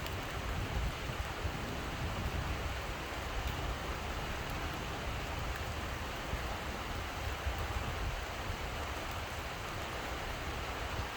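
Steady rain falling, an even hiss with an uneven low rumble underneath.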